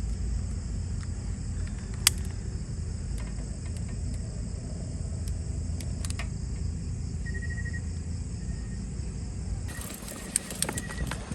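Outdoor ambience: a low rumble and a steady high insect-like drone, with a few sharp clicks. Near the end it changes abruptly to a run of scratching and clicking sounds.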